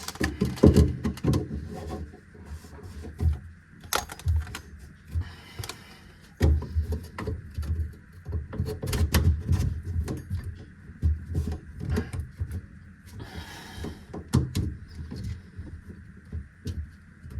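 Hands fitting drain pipe pieces and a garbage disposal under a kitchen sink: irregular clicks, knocks and rubbing of the parts, with stretches of low bumping.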